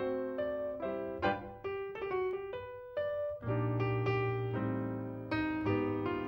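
Piano music: a run of separate notes, then fuller chords over a low bass from about halfway through.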